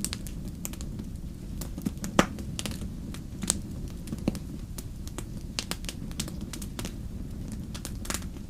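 Wood fire crackling, with irregular sharp pops over a steady low rumble and one loud pop about two seconds in.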